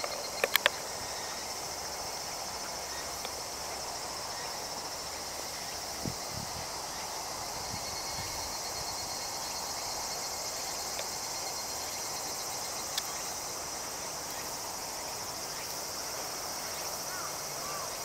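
Steady, high-pitched chorus of insects trilling in the grass, with a few sharp clicks about half a second in.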